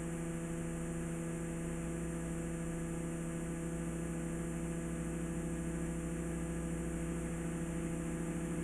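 Steady electrical mains hum with a faint hiss: background noise of a VHS tape transfer, brought up when the quiet audio was normalised.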